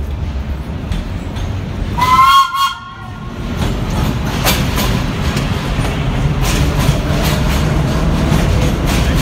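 Vintage Low-V subway train sounds one short horn blast about two seconds in, then runs in and passes close by, its low rumble growing and its wheels clicking over the rail joints.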